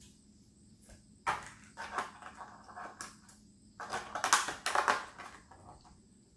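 Thin plastic body shell of a 1/18-scale Haiboxing Hailstorm RC car crinkling and clattering as it is handled and pressed down onto the chassis. Irregular scratchy handling noises, loudest from about four to five seconds in.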